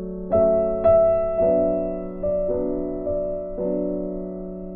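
Background music: gentle piano chords struck one after another, each fading before the next.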